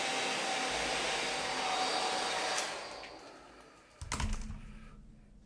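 Handheld hair dryer blowing steadily during a blow-dry, then switched off and winding down about three seconds in. A short knock follows about a second later.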